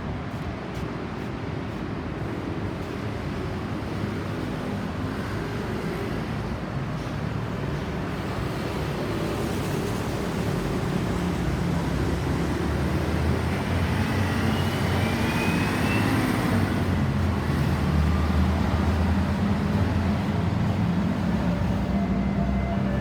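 Road traffic with a vehicle approaching, its engine and tyre noise growing steadily louder. A faint rising tone comes in briefly about two-thirds of the way through, and a low engine drone builds near the end.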